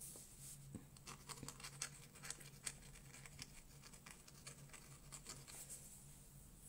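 Metal dip-pen nib scratching across watercolour paper in quick, irregular scribbling and hatching strokes, faint, stopping near the end.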